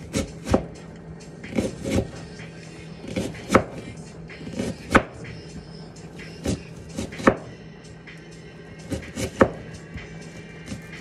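Kitchen knife striking a cutting board while chopping onions by hand: about a dozen sharp knocks at an uneven pace, some in quick pairs.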